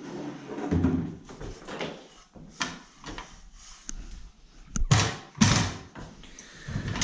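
A series of knocks and bumps with handling noise, the loudest pair about five seconds in.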